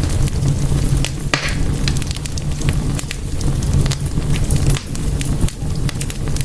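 Wood fire in a fireplace crackling: frequent irregular sharp pops and snaps over a steady low rumble of the flames, with a brief hissing pop a little over a second in.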